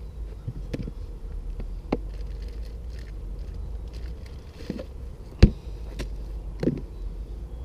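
A handful of sharp clicks and knocks over a steady low rumble, with the loudest knock just past halfway through.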